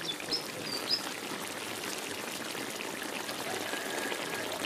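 Onion-and-tomato sauce simmering in a pan, bubbling steadily. A few short high chirps come in the first second.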